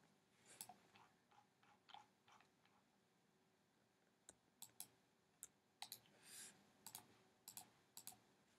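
Near silence broken by faint, scattered clicks of a computer mouse and keyboard as on-screen text is selected and copied. A short soft hiss comes about six seconds in.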